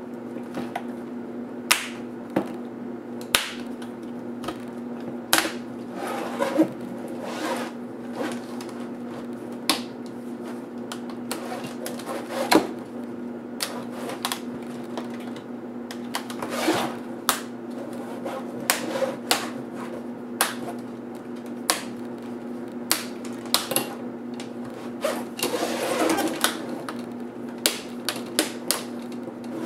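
Irregular sharp plastic clicks and snaps as the plastic bezel of a Samsung NP305E7A laptop screen is pried off by hand and the screen assembly is handled on the bench, over a steady low hum.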